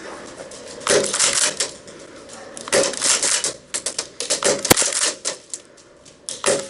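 Airsoft gunfire: short bursts of rapid clicking, several times over, with one sharp crack about halfway through.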